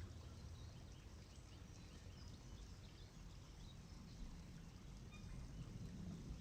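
Faint natural ambience: a low, steady rumble of breeze with scattered faint bird chirps.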